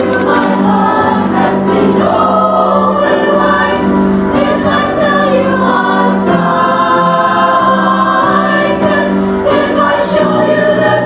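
Music with a choir of voices singing, loud and steady throughout.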